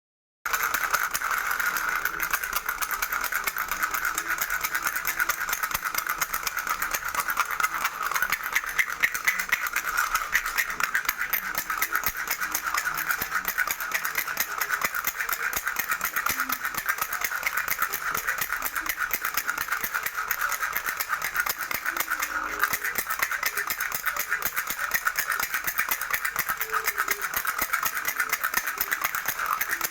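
Baby's toy rattle shaken rapidly and without pause, a dense steady run of quick clicks starting about half a second in.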